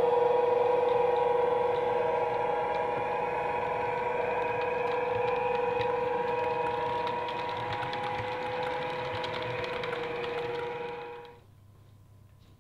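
OO gauge model train running on the layout: a steady mechanical hum with a clear held tone, which cuts off suddenly about eleven seconds in.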